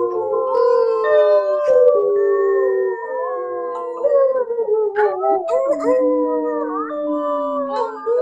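A group of people howling together in imitation of wolves over a video call. Many voices overlap at different pitches, each holding long notes that slide up and down.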